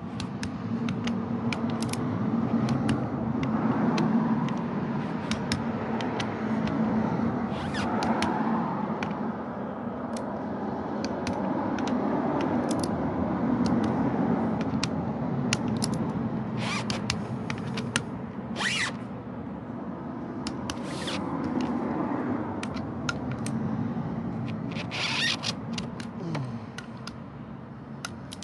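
Metal tools clicking and scraping on a cylinder head as valve springs are pressed down and the valve keepers fitted, with several sharper metallic clicks, over a steady low background hum.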